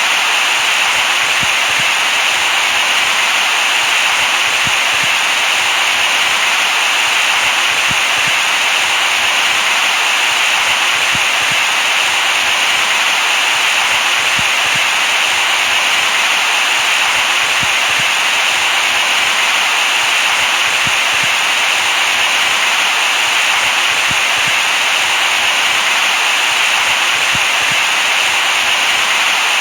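Steady white noise for lulling a baby to sleep: an even, unchanging hiss, brightest in the upper middle.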